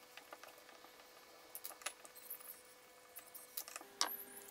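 Faint, scattered clicks and ticks of a screwdriver and small loose screws being handled on a wooden workbench while a plywood chuck is unscrewed. A sharper click comes about four seconds in.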